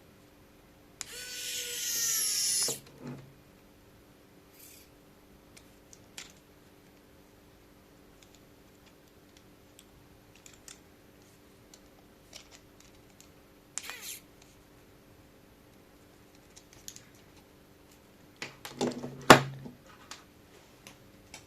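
Small electric screwdriver running for about two seconds, its whine rising in pitch as it drives tiny M2 screws into 3D-printed plastic parts. Scattered light clicks of small parts being handled follow, then a second, shorter burst with a sharp click near the end.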